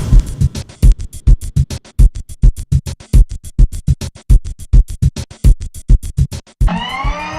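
Electronic intro music made of a fast run of sharp drum-machine hits, ending in a rising pitch sweep near the end.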